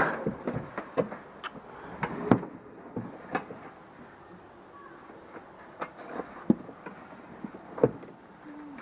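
Irregular knocks and clicks, a dozen or more, with the loudest about two seconds in and another near the end.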